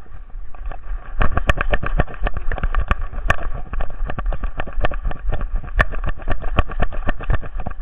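Rapid, uneven knocks and rattles from a camera strapped to a running dog, each stride jolting the mount, over a steady low rumble of wind and handling noise. The knocking starts about a second in.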